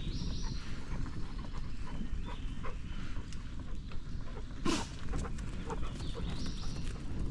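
Bicycle riding along a farm trail, with a steady low rumble of wind and tyres, scattered small clicks, and noises from dogs running alongside. One sharp knock comes a little past halfway.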